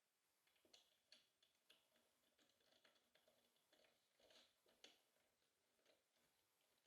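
Near silence with faint, irregular ticks and clicks.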